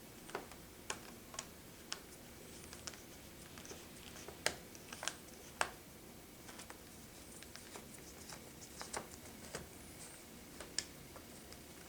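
Faint, irregular clicks and taps of a small screwdriver and hands working a tiny screw into a laptop screen's mounting bracket.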